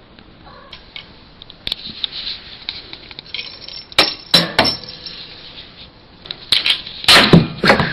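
Small hard objects clinking and knocking on a hard surface: a few separate taps, then a louder cluster of knocks near the end.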